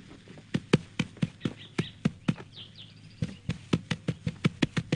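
Horse's hooves clip-clopping as it moves off, sharp hoof strikes at about four a second, starting about half a second in and briefly pausing a little after the midpoint.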